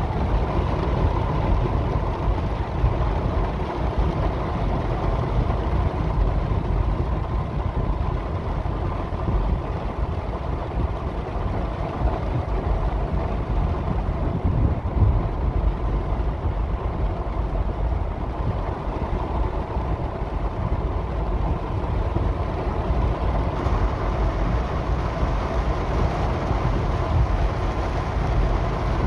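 Steady low rumble of a car being driven through heavy rain, heard from inside the cabin: engine and wet-road noise.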